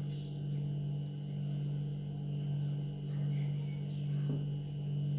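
A steady low hum that slowly swells and fades, with faint scratching of a marker on a whiteboard.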